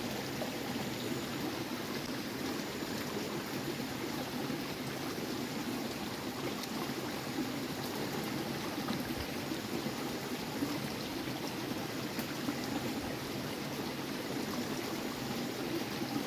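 Shallow stream water running steadily, a continuous trickling rush.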